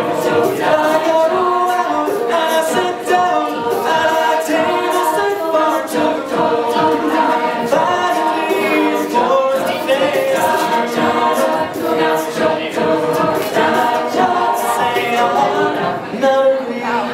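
Mixed-voice a cappella choir singing in close harmony, with a steady beat of vocal percussion from a singer at a handheld microphone.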